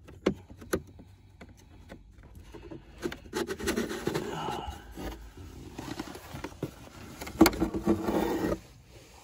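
Old cabin air filter being pulled out of its plastic housing: scraping and rustling of the filter frame against the housing in two spells, the second louder and starting with a sharp click.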